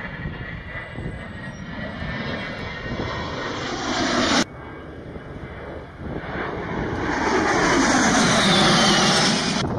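A-10 Thunderbolt II's twin turbofan jet engines rushing past overhead, the noise building as the jet nears. It cuts off suddenly about four and a half seconds in, then builds again with a sweeping pitch to its loudest near the end.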